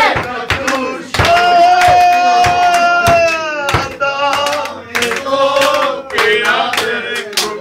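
A group of men singing loudly together, holding one long note from about one second in to nearly four seconds, with scattered handclaps.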